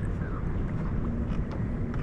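Steady low rumble of wind buffeting the microphone on an open boat, with a faint hum in the second half.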